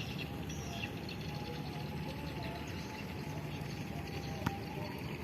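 Quiet outdoor ambience: a steady low hum with faint high chirps, and one sharp click about four and a half seconds in.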